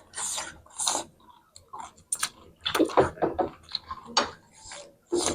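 Close-miked eating sounds: chewing and lip smacks, with irregular short clicks and brief wet bursts.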